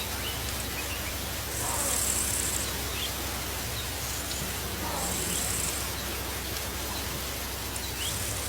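Insects buzzing in high-pitched bursts about a second long, repeating roughly every three seconds, over a steady hiss and a low hum.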